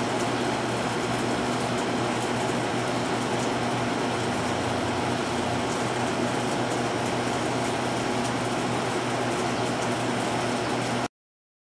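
Steady mechanical hum over an even hiss, with a constant low drone, cutting off abruptly about eleven seconds in.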